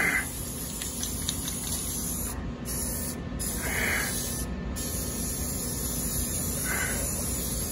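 Aerosol spray can hissing steadily as a black coating is sprayed onto bare welded steel, with a few brief breaks near the middle.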